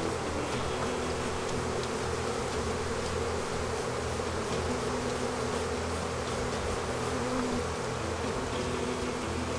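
Steady loud buzz of a mass of honeybees boiling out of an opened hive, many wingbeat hums overlapping at slightly different pitches.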